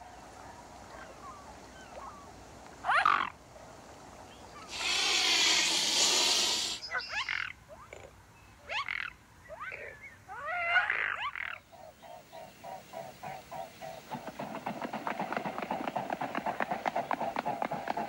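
Mute swan sounds: a few short harsh calls and a loud hiss-like rush about two seconds long around five seconds in. From about twelve seconds comes a rapid, even pulsing that grows stronger.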